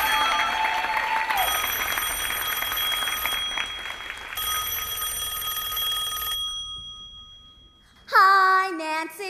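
Telephone bells ringing steadily, fading away between about six and eight seconds in. Singing voices start near the end.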